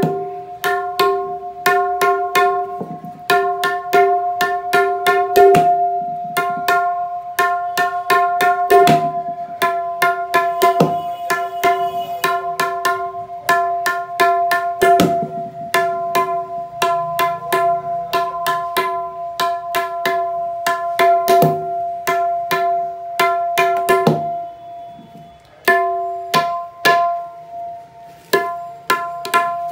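Sheesham-wood tabla dayan (right-hand drum) struck with the fingers in a quick run of strokes, each one ringing at the drum's tuned pitch with clear overtones. The playing drops off briefly about 24 seconds in, then the strokes start again.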